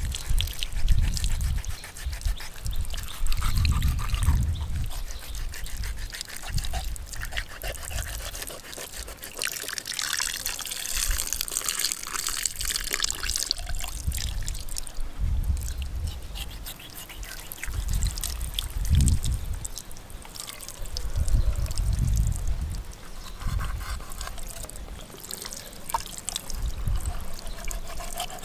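A thin stream of water trickling and splashing onto a shark carcass as it is slit open and gutted with a knife. Dull low thumps come and go throughout.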